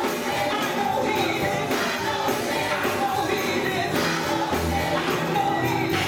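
Gospel choir singing with instrumental accompaniment and a steady beat.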